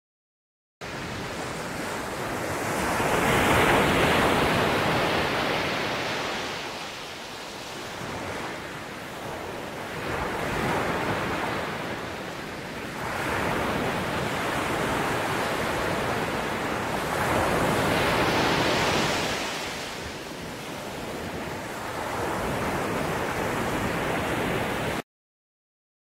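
Sea waves breaking and washing over a rocky shore, the surf swelling and falling away every several seconds. It starts just after the opening and cuts off abruptly near the end.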